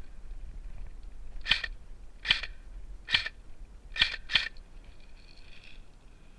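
Airsoft gun fired in single shots: five sharp cracks about a second apart, the last two close together.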